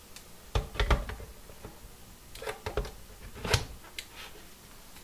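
Hard plastic knocks and clicks as an opened Kobalt 80V lithium-ion battery pack is set onto its charger cradle and pushed into place. There are several separate clunks, in three small bunches.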